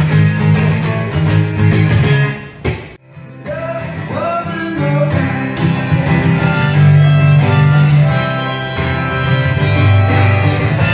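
Live acoustic guitar strumming with a man singing. The music breaks off briefly about three seconds in, then resumes.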